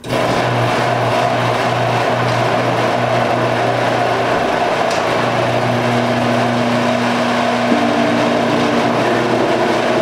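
Electric garage door opener running steadily as it raises a sectional garage door, a constant motor hum with the rattle of the door rolling up its tracks.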